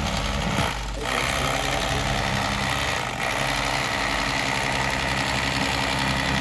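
Corded electric fillet knife running steadily as its blades saw through a speckled trout, easing off briefly about one second and again about three seconds in.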